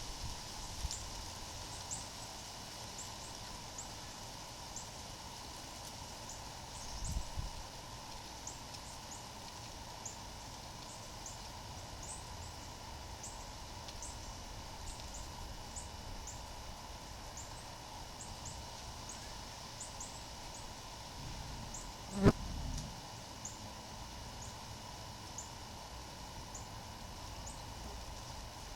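Outdoor yard ambience: a steady run of short, high-pitched chirps, one or two a second, over a faint steady hiss. A single sharp knock comes about two-thirds of the way through and is the loudest sound.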